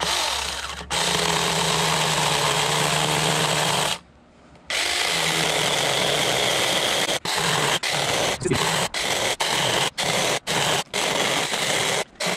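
Taranzy mini cordless electric chainsaw cutting into the end grain of a log slice, carving grooves with the bar tip. It runs steadily for about three seconds, stops briefly, runs again, then in the second half comes in a quick series of short trigger blips as the cuts are worked in.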